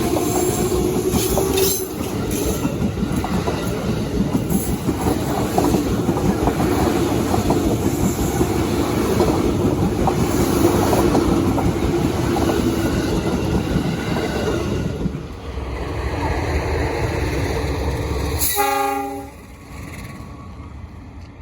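A train running past at close range, its wheels clattering over the rails for about eighteen seconds. Near the end a short horn blast sounds, and then the noise falls away sharply.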